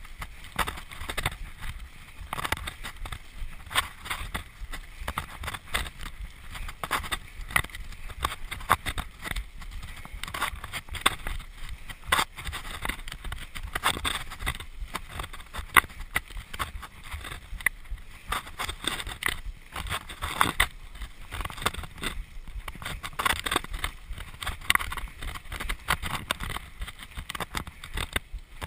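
Mountain bike riding fast over a rocky dirt trail: a constant irregular clatter and rattle of the bike and tyres over stones, with a low rumble underneath.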